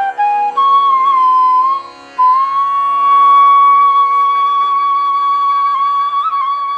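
Indian classical-style flute melody over a steady drone. A short phrase, a brief pause, then one long held note with small ornamental turns near the end.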